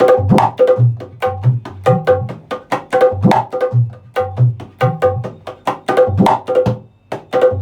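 Dholak played in a steady rhythm: sharp ringing strokes on the treble head alternate with deep thumps on the bass head, several strokes a second. The pattern repeats about every three seconds, each cycle opening with a low stroke that rises in pitch.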